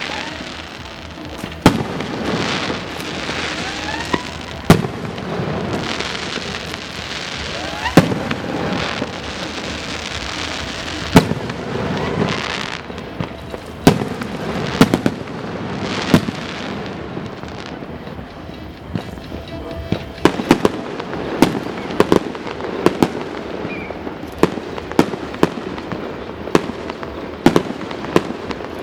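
Fireworks display: aerial shells bursting with loud bangs over continuous crackling, with a few rising whistles in the first half. The bangs come faster, about two a second, in the second half.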